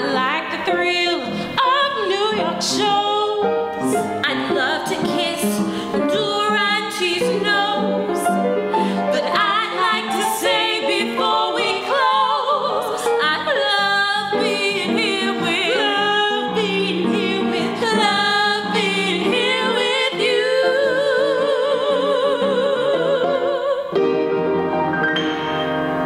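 Two women singing a duet in trained operatic voices, accompanied by piano. Held notes carry vibrato, with a long held note with wide vibrato near the end.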